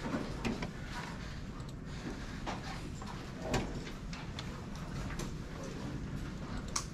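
Classroom after dismissal: scattered knocks and clicks of students and the instructor moving about and handling things, over a low steady room rumble.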